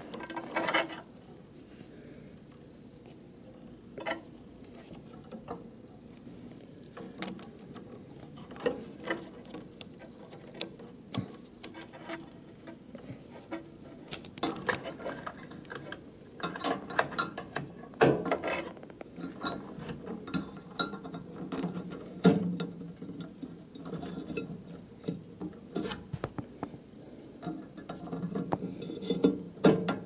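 Irregular small clicks, taps and scrapes of hands handling wiring and a plastic fuse holder inside an opened microwave oven, while a replacement high-voltage fuse is fitted.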